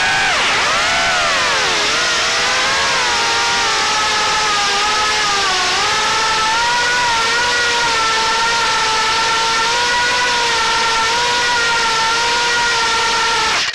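Brushless motors and propellers of a 3-inch FPV quadcopter (1105 5500kV motors) whining, heard from the onboard camera. The pitch swoops up and down with the throttle for the first two seconds, then holds a fairly steady whine with small wobbles. It cuts off suddenly at the end as the quad lands.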